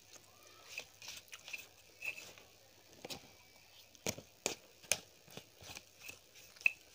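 A person chewing a mouthful of yellow rice, making soft wet mouth clicks and lip smacks at an irregular pace, with a few sharper clicks about four to five seconds in.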